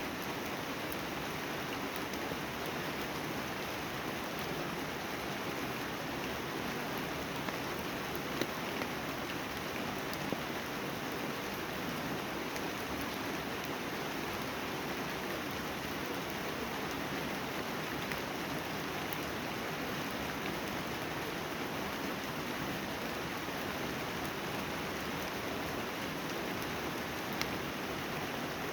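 Steady rain falling, an even hiss with a few louder single drops ticking now and then.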